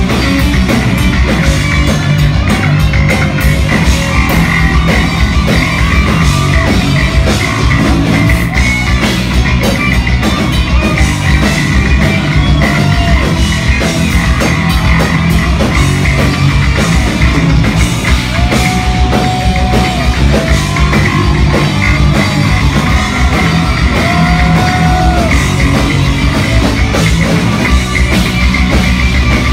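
Live heavy metal band: a distorted lead electric guitar plays a solo over a pounding drum kit and bass, twice sustaining long held notes in the second half.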